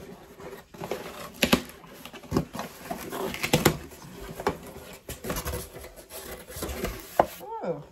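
Cardboard shipping box being opened by hand: tape and flaps pulled, cardboard scraping and knocking in a string of short sharp sounds. Near the end, a short falling vocal sound.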